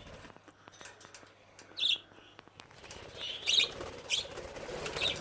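Young budgerigars giving four short, high chirps, spread over a few seconds, with faint clicks of movement in between.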